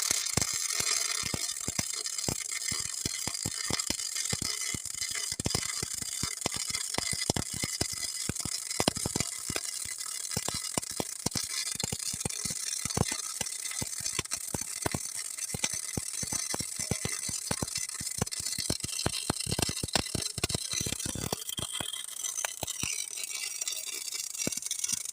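MIG welding with solid wire: the arc crackles steadily, with dense, irregular sharp pops over a high hiss.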